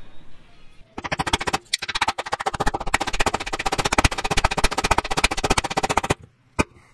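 Hammer tapping an aluminium subframe mount down into its bore in the subframe: a fast, even run of sharp knocks that starts about a second in and stops shortly before the end.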